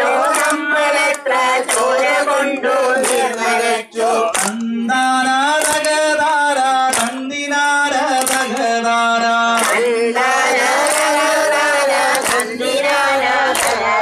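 Malayalam protest song sung together by a crowd, led by a man singing into a microphone, with hand clapping to the beat.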